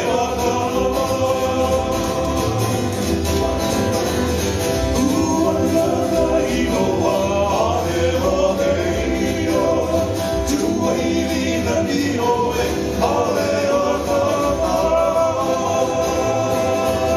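Hawaiian string band playing live: men singing together over acoustic guitars and an upright bass, with steady, unbroken singing.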